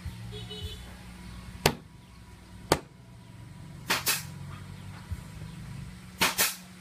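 Cleaver chopping raw meat on a wooden chopping block: six sharp chops, two single strokes followed by two quick double strokes.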